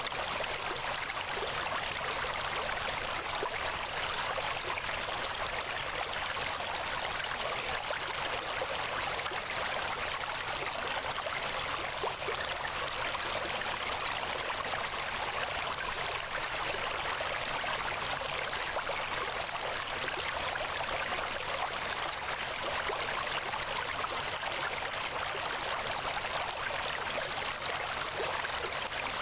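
Steady rushing noise like running water, even and unchanging, with a faint low hum beneath it: the masking sound of a subliminal recording.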